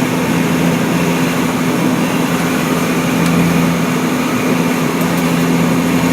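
Steady vehicle travel noise: a loud, even rush with a constant low hum that does not change.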